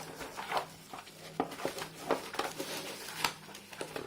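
Hands handling a keyboard's packaging: irregular rustles and small clicks and taps of cardboard and plastic wrapping.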